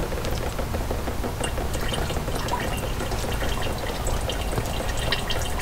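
Brake fluid trickling and dripping from the split front brake caliper of a Unimog U3000 into a plastic catch jug: a steady trickle with scattered small drip ticks.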